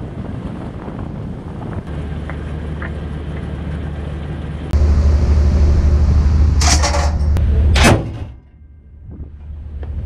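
Steady low rumble of a warship under way, with wind on the microphone. It gets louder about halfway through, and two short, sharp bursts of noise follow before it drops off briefly near the end.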